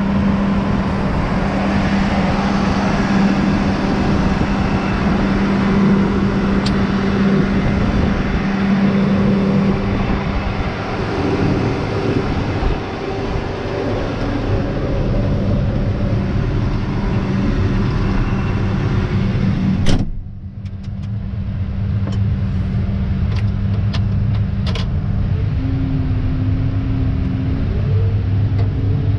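Case IH Magnum 400 tractor's 8.7-litre FPT six-cylinder turbo diesel running steadily while working in the field, with a constant engine note. About two-thirds of the way through, the sound cuts to a lower, duller drone heard from inside the cab, with a few light clicks.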